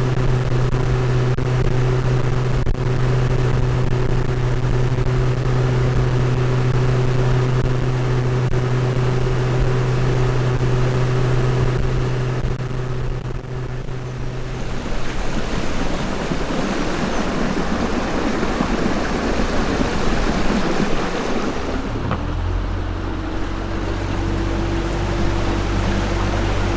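Motorboat engine running steadily over water and wind noise. Its note changes about fifteen seconds in and settles into a different, deeper steady drone from about twenty-two seconds.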